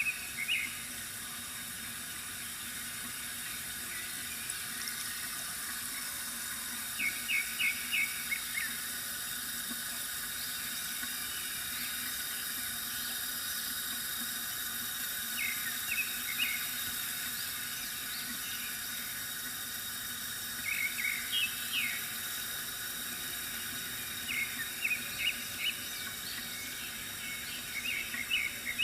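Water trickling steadily from a bamboo fountain spout, with birds chirping in short runs of quick, high notes several times, most often near the end.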